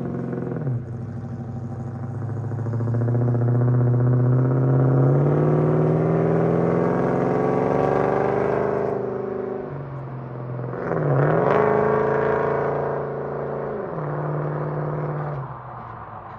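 Holden VK Commodore's 5.0-litre V8 driving on the road, the engine note dropping as it shifts, then climbing steadily for several seconds as it accelerates, falling and rising again with another gear change, and easing off near the end. The engine is running properly after a vacuum leak to the MAP sensor was fixed.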